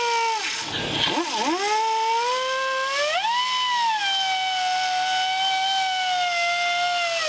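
Air-powered mini belt sander whining as it grinds steel, throwing sparks. Its pitch dips sharply twice about a second in, climbs around three seconds in, then holds steady.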